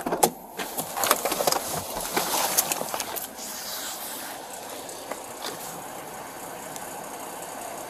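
Clicks and rustling of a body-worn camera and duty gear as a police officer climbs out of a patrol car. After about three seconds this gives way to a steady hum of idling cars.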